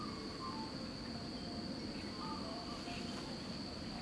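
Insects droning steadily at one high pitch, over a low rushing noise, with a few faint short chirps.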